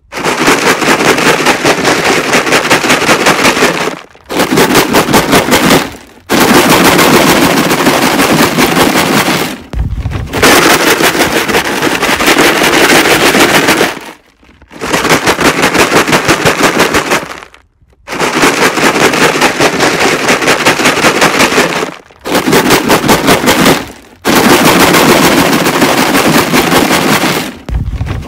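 Plastic jug filled with rocks being shaken hard: loud, rapid rattling in about eight bursts of a few seconds each, with short breaks between.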